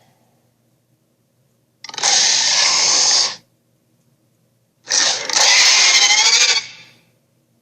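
Two harsh, rasping screeches of a cartoon Sharptooth (tyrannosaur) villain, Red Claw. The first lasts about a second and a half. The second comes about three seconds in, opens with a short burst and runs on for nearly two seconds with a wavering pitch.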